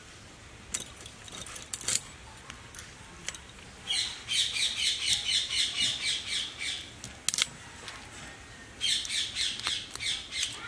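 A bird chattering in quick repeated high notes, in two bouts of a few seconds each. A few sharp clicks come from prawns being cut and peeled on a boti blade.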